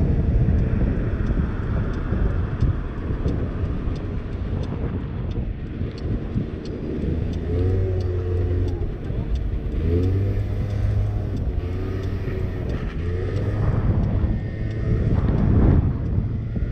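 50cc scooter engine running while riding, with heavy wind rumble on the handlebar-mounted camera's microphone. From about seven seconds in, the engine note rises in pitch three times in a row as the scooter accelerates.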